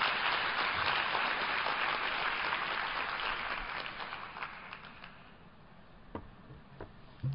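Audience applauding, dying away about five seconds in, followed by a few faint knocks.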